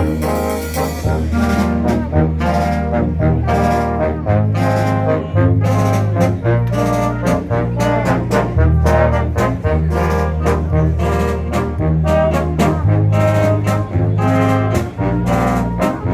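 Concert band playing, brass to the fore, over a low bass line that steps from note to note, with frequent sharp percussion strikes.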